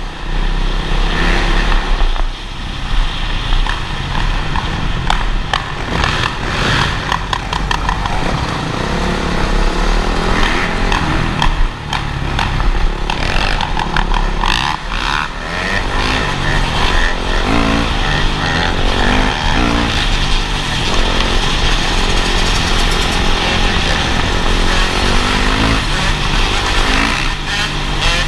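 Dirt bike engines running and revving, rising and falling in pitch, with a constant rush of wind over the microphone.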